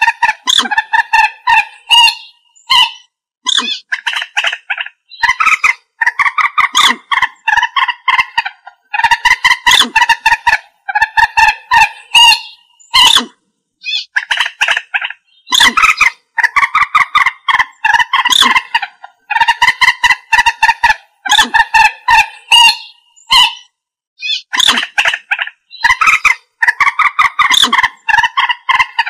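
Common moorhen calling: rapid series of short, harsh clucking notes in bursts of about a second each, repeated over and over with brief pauses between.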